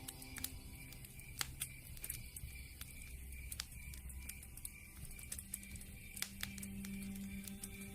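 Campfire crackling: irregular sharp pops and snaps over soft, sustained low notes of background music.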